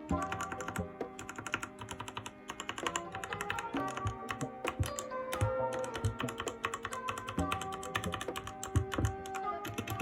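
Close-miked Redragon K552-WR mechanical gaming keyboard being typed on: quick, irregular clicking keystrokes, with background music underneath.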